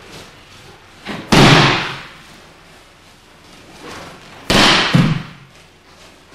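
Two hard thuds about three seconds apart: a thrown aikido partner slapping down onto the mat in a breakfall, each with a short echo.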